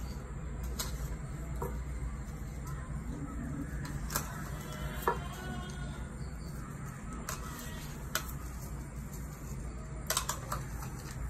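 Plastic spoon tapping against plastic bowls as it scoops from a small bowl into a bowl of chopped fruit: scattered light clicks a second or more apart, with a quick cluster of taps near the end, over a steady low hum.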